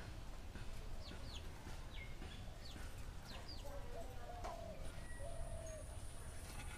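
Faint farmyard bird sounds: a chicken clucking, with a drawn-out call about four seconds in, and quick high chirps from small birds scattered through.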